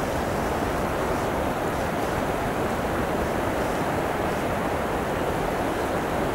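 Steady rush of the swollen, flooding river's current, with wind rumbling on the microphone.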